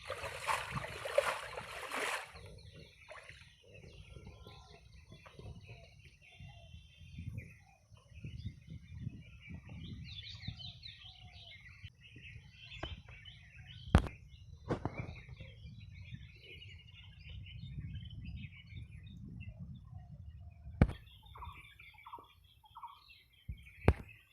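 Small birds chirping on and off. A loud rush of noise fills the first two seconds, and there are a few sharp knocks later on.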